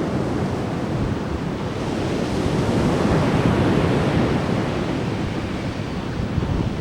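Ocean surf breaking and washing up the beach, one wave swelling about two seconds in and easing off, with wind rumbling on the microphone.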